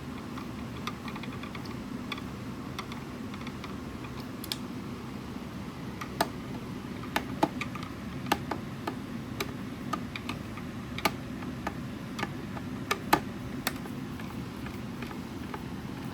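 Irregular small clicks and taps from handling the speaker's plastic casing, parts and screws during disassembly. They are sparse at first, then come as a run of sharper clicks through the middle and later part, over a steady low hum.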